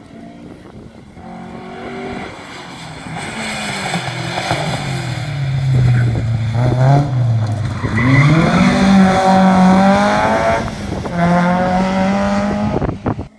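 Historic rally car's engine approaching hard and growing louder. Its pitch dips as it slows around halfway through, then rises as it accelerates away at full throttle, with a brief break for a gear change near the end. The sound cuts off suddenly just before the end.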